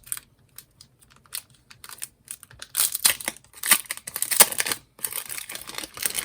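Plastic packaging being handled and opened: scattered clicks and crackles, busiest and loudest around the middle, easing into a softer rustle near the end.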